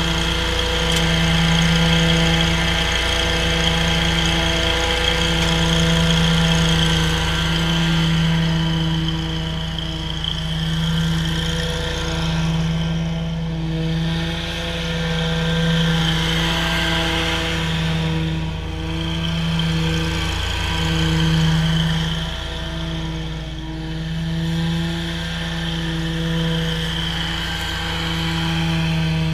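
Toro GrandStand stand-on mower's engine running at a steady speed while mowing, growing louder and fainter by turns as the mower moves back and forth across the lawn.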